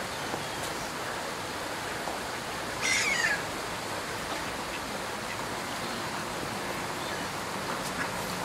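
Steady rush of flowing river water, with one short, high cry falling in pitch about three seconds in.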